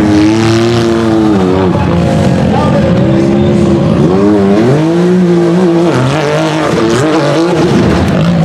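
A tube-chassis UTV's engine revving hard up a steep dirt hill climb. Its pitch rises and falls over and over as the throttle is worked, dipping and climbing again every second or so.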